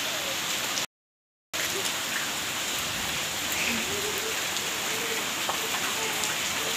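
Steady rain falling on wet ground and puddles, a continuous hiss. About a second in, the sound cuts out completely for about half a second, then resumes.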